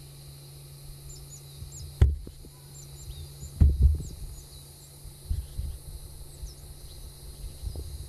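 Outdoor ambience: a few low thumps on the microphone, the loudest about two seconds in and just before four seconds, over faint high bird chirps and a steady high hiss.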